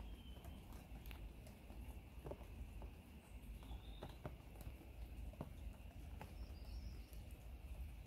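Faint, irregular light taps and clicks over a low rumble, with a few short high chirps.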